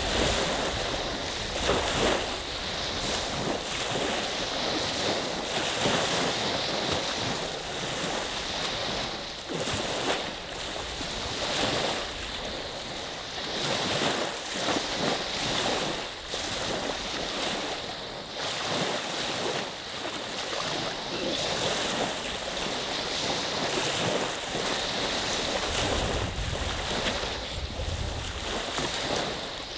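Lake waves washing onto the shore in a steady series of splashes, one surge every second or two. Wind rumbles on the microphone now and then, most clearly near the start and near the end.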